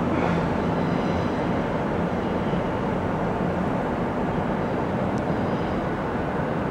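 Diesel locomotive running as it moves through the station: a steady rumble, with an engine hum that fades about a second in.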